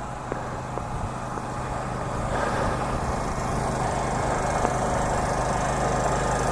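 A motor running steadily with a low, even hum. A hiss joins it about two seconds in, and both grow gradually louder.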